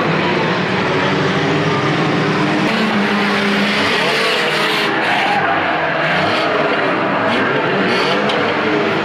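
Several banger racing car engines running and revving together, their pitches rising and falling as the pack circuits the shale oval, with a few short knocks in the second half.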